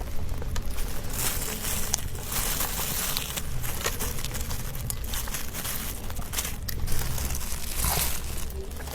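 Eating sounds: a person chewing and crunching sweet food in irregular crackly bites.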